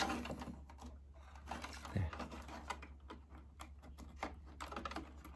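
Irregular small clicks and rattles of plastic wire connectors and leads being handled and pressed onto a mini split indoor unit's control board, with a sharp click right at the start and another about two seconds in.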